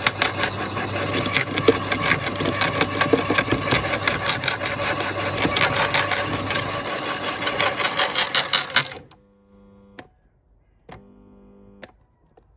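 Topshak WS1 electric garden shredder grinding a thick branch, with loud continuous crunching and cracking. About nine seconds in it cuts off suddenly as the machine jams and stalls on the 5–6 cm branch, well beyond its 40 mm capacity. Only faint short hums and clicks follow.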